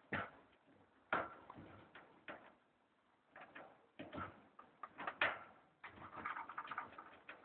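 Faint, irregular clicks, taps and rustles, with a sharper knock about five seconds in and a quick run of small ticks near the end.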